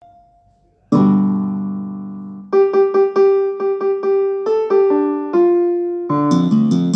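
Ringtone melody in a piano-like keyboard sound. A held chord comes in about a second in, then a quick run of repeated notes, and a busier rhythmic accompaniment joins near the end.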